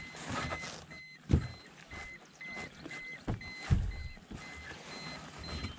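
A quick, steady string of short electronic beeps, with several hollow thumps and knocks on the aluminium boat's hull and deck about a second, three seconds and near four seconds in.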